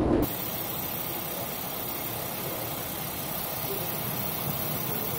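A louder low rumble cuts off a quarter second in, giving way to a steady, even hiss of storm wind aboard a container ship in heavy seas, with no distinct events.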